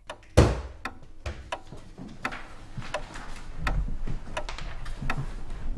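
A single heavy thump about half a second in, then a wall clock ticking quickly and evenly.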